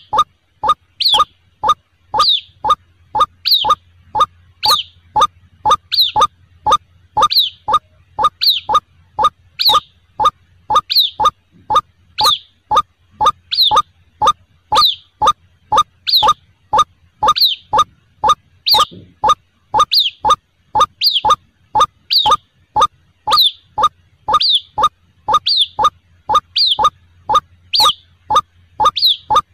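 White-breasted waterhen (ruak-ruak) chick calls played as a lure: short rising peeps about three a second, mixed with higher squeaks, repeating in an even loop.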